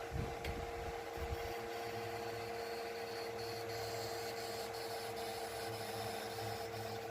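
Steady machine hum with a few low thumps in the first second and a half.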